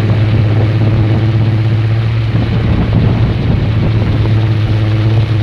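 Kolecer, a wooden wind propeller on a pole, spinning in the wind with a loud, steady, low drone, with wind noise on the microphone.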